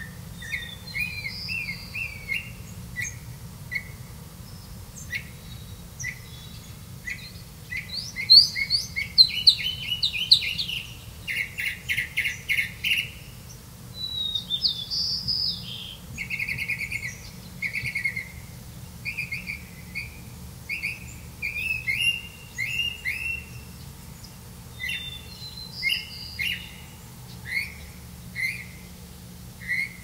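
Small songbirds chirping: many short high chirps and quick trills, with a loud, dense run of rapid chirps about eight to thirteen seconds in.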